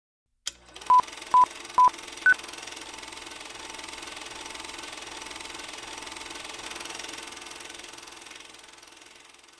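Four short electronic beeps in quick succession, about half a second apart: three at the same pitch, then a fourth at a higher pitch, in the pattern of a countdown signal. A steady hiss-like background runs under them and fades away near the end.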